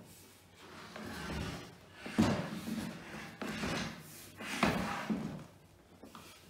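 Knocking and scraping of a flat-pack IKEA Malm drawer's panels as it is handled and turned up on end on a wooden floor: three sharper knocks, each a second or so apart, with rubbing in between.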